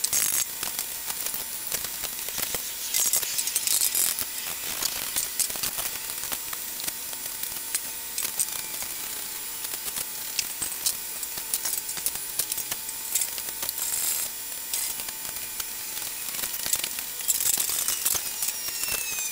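Metal parts and hand tools clicking and clinking as a small metal-cutting bandsaw is reassembled: many scattered short clicks over a steady faint hiss.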